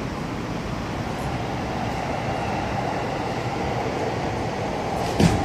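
Steady low rumble of city street noise, with one sharp knock near the end.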